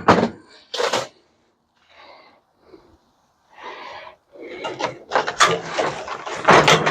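Knocks, clattering and scraping of metal parts being handled as a microwave oven is taken apart for scrap: two sharp knocks at the start, then a run of rattling and scraping in the last few seconds.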